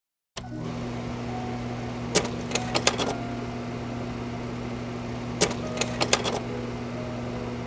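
A steady low hum under a faint hiss starts abruptly. Two short flurries of sharp clicks or knocks come through it, about two seconds in and again about five and a half seconds in.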